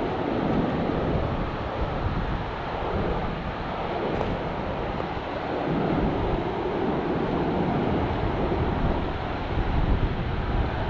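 Rushing floodwater of a creek running high at flood stage, breaking over submerged rapids in a steady, even rush. Wind buffets the microphone, adding an uneven low rumble.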